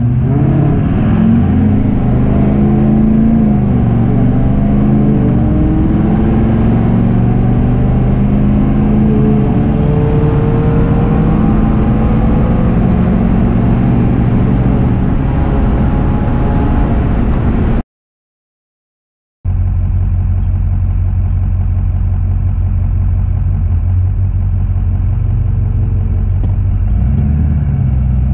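Diesel pickup truck engine at full throttle on a quarter-mile drag pass, its pitch climbing and dropping back at each gearshift. After a sudden break, the engine runs steadily at low revs, rising slightly near the end.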